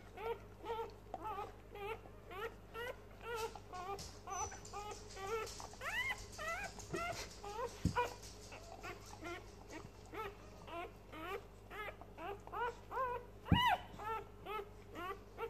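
Newborn English Springer Spaniel x Australian Kelpie puppies squeaking and whimpering over and over, short high rising-and-falling squeaks a few each second while they nurse. Two sharp clicks, the loudest near the end.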